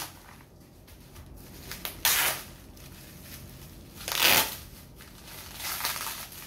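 Bubble wrap being handled and pulled open by hand, rustling and crinkling, with two louder crinkles about two and four seconds in.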